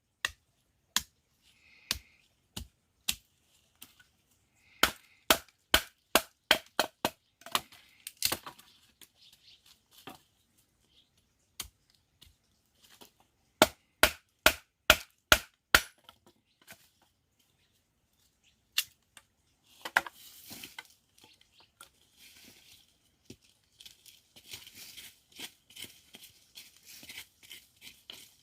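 Sharp chopping knocks, struck in quick runs of about three a second with pauses between. Near the end there is a fainter, continuous crackling.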